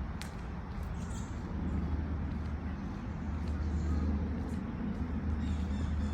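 Steady low outdoor rumble of background city noise, with a few faint high chirps and light clicks.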